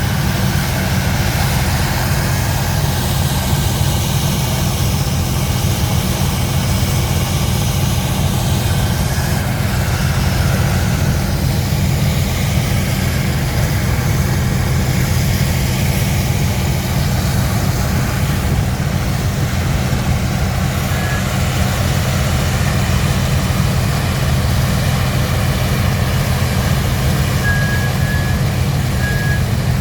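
Heavy diesel engine running steadily with a deep, even rumble, from the coal-hauling dump truck and excavator. A few short high beeps sound near the end.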